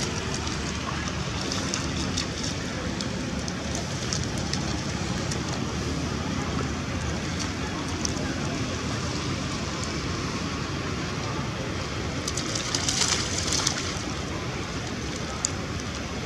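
Macaques splashing as they wade and play in shallow water, over a steady rushing background noise, with a brief louder splash about three quarters of the way through.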